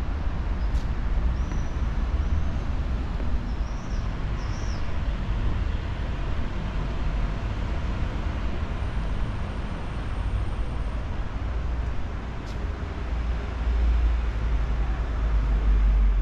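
Outdoor city ambience: a steady low rumble of distant road traffic, swelling a little near the end, with a few short high chirps near the start.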